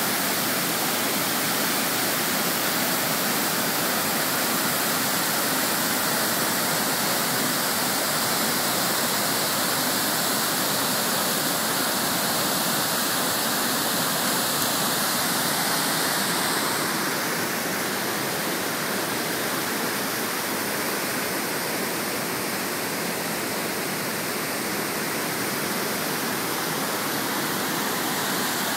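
Nugget Falls, a large waterfall, pouring down a rock face into a glacial lake: a steady rush of falling water, a little softer about two-thirds of the way through.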